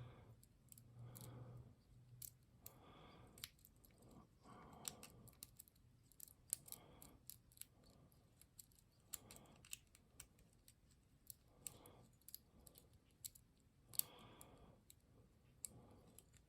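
Faint, irregular clicks and ticks of a lock pick working the pins of a padlock under a tension wrench, setting pins as it goes.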